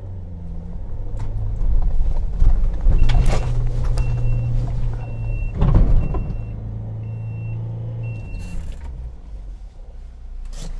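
Turbodiesel engine pulling steadily in low-range four-wheel drive up a steep slope, swelling in the middle, with a couple of sharp knocks and scrapes as the underside lightly grounds near the top of the climb. A short high warning beep repeats about six times during the climb.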